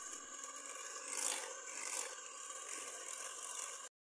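Electric hand mixer running steadily, its beaters whipping egg-and-milk custard cream in a glass bowl to thicken it. The sound swells briefly twice and cuts off suddenly just before the end.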